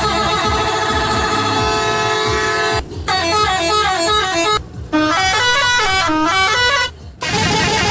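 Multi-tone 'telolet' horn of an odong-odong village tourist train playing a tune: a long held chord, then quick runs of stepping notes broken by three short pauses, and a new chord near the end.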